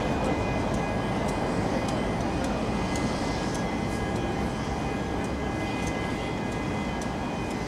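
Twin-engine jet airliner's turbofan engines running at high power as the plane rolls down the runway: a steady, dense rumble with a few faint high whine tones over it.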